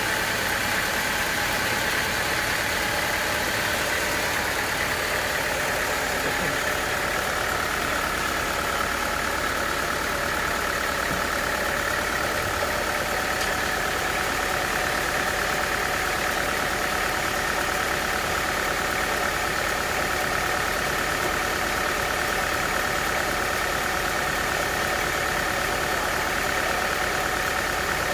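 Sawmill machinery running steadily through acacia wood: a constant engine-type drone with a high whining tone over it.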